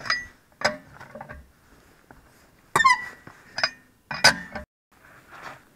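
Four-way cross lug wrench clanking and ringing on the wheel bolts of a BMW E34's rear wheel as the bolts are slackened: a handful of sharp metallic knocks, the loudest about three and four seconds in.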